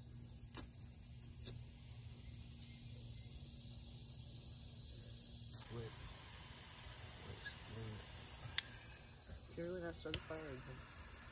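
Steady chorus of insects, a continuous high-pitched drone, with two sharp clicks late on.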